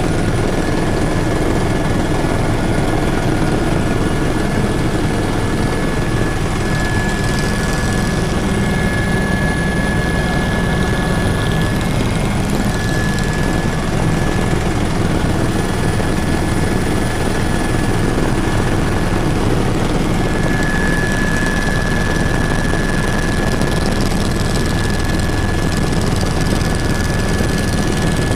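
Helicopter in flight heard from inside the cabin: a steady, loud din of rotor and engine, with a thin high whine through it that grows stronger and fades at times.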